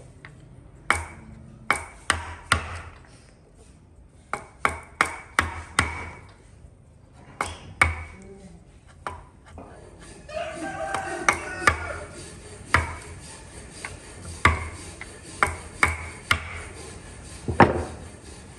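A hammer striking metal in irregular bursts of blows, each hit sharp with a short ringing ping.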